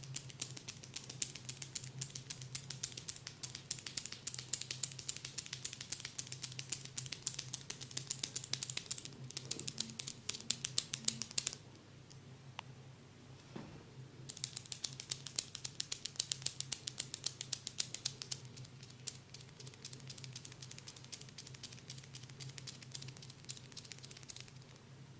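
Rapid light tapping on the forehead during an ASMR head massage, many crisp taps a second. It stops for about three seconds near the middle, then goes on more softly, over a steady low hum.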